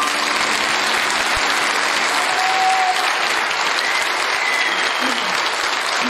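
An audience applauding steadily.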